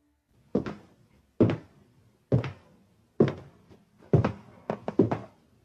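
A series of dull knocks, the first four about a second apart, then several quicker ones near the end, some of them doubled.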